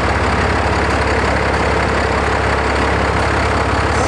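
Twin-turbo 12-valve Cummins 5.9 L inline-six diesel in a first-generation Dodge Ram 250, idling steadily with a rapid, even diesel clatter. The engine has some 930,000 miles on it and reportedly has a ton of blow-by.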